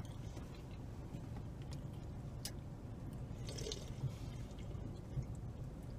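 Quiet eating and drinking sounds: a short sip from a soda can about midway, with a few small mouth clicks, over a low steady hum.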